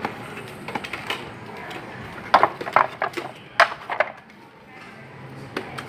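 Hollow channel letters for a shop sign being handled, knocking and clattering against one another and the concrete floor in a scatter of sharp knocks, loudest in two quick clusters a little past the middle.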